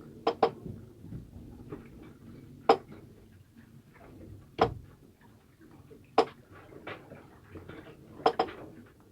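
Scattered sharp clicks and knocks of hard objects, about seven in all, two of them in quick pairs, over a faint background.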